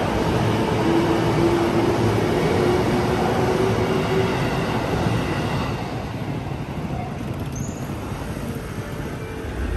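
Electric commuter train, a JR Nambu Line set, running close below: a steady rumble of wheels on rail with a faint whine over it. It fades away after about five and a half seconds as the last car clears.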